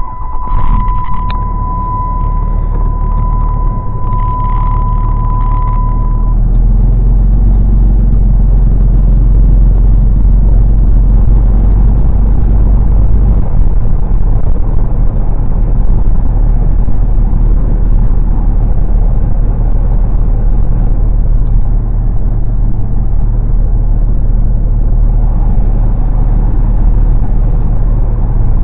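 A motor vehicle running, a loud, steady low rumble; a steady high-pitched tone sounds over it for about the first six seconds, then stops.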